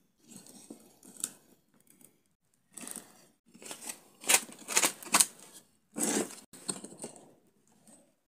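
Dry tingui seed husks and carnaúba palm straw rustling and scraping against a wooden stick vase as they are pushed into place, with a few sharp clicks and knocks, loudest a little past the middle.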